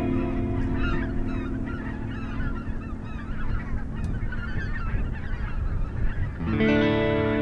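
A flock of geese honking and calling continuously. A sustained musical chord sounds over it at the start, fades out, and comes back near the end.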